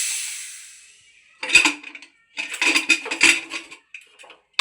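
Steam hissing out of a pressure cooker, fading away over the first second and a half, then a metal spoon clinking and scraping against the cooker's steel pot in short ringing bursts as the cooked aloo matar is stirred.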